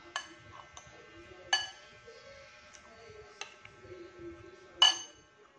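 Metal fork and spoon clinking against a plate as food is scooped up: four sharp clinks that ring briefly, the loudest near the end. Faint background music underneath.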